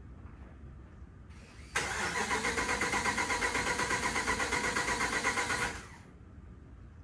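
Starter motor cranking a car engine on a jump start, with even rhythmic pulses for about four seconds. The engine does not catch, and the cranking stops.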